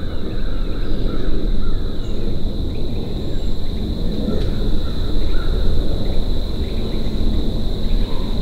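Crows cawing faintly several times over a steady low rumble, with a thin constant high whine throughout.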